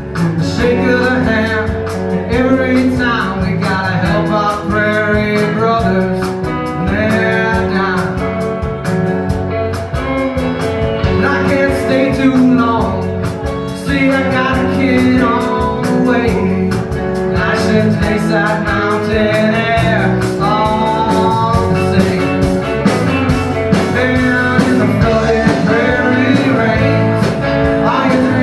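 A live country-rock band playing a song with acoustic and electric guitars and drums.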